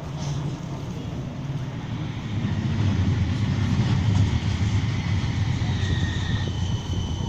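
A West Midlands Metro tram, a CAF Urbos 3, running past. A low rumble builds to its loudest about three to four seconds in and then eases, with a faint high whine in the later part.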